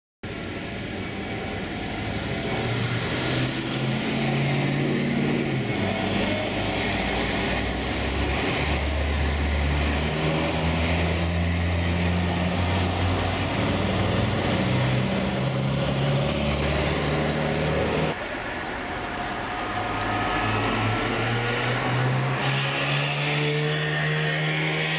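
Classic cars driving slowly past, their engines running and pulling away with the pitch stepping up and down. The sound drops abruptly about two-thirds of the way through.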